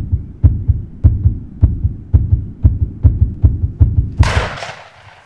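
A heartbeat sound effect, low thuds about two a second. About four seconds in it gives way to a sudden loud rush of noise as a wild turkey flushes at close range, wings flapping, which fades within half a second.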